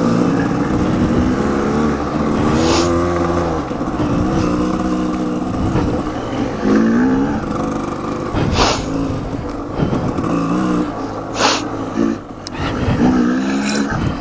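Dirt bike engine revving up and down as it rides a trail, rising and falling in pitch every few seconds, with a few brief hissing swishes.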